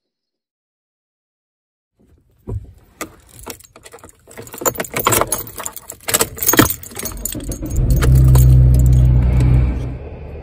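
Car keys jangling and clicking as a key goes into the ignition and is turned, then the car's engine starts and runs loud and steady for about two seconds before settling to a quieter idle near the end.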